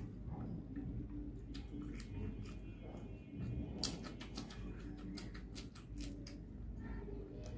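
Close-miked chewing of rice and fried fish, with sharp crunchy clicks as a raw green chilli is bitten and chewed, most in a quick run about four seconds in.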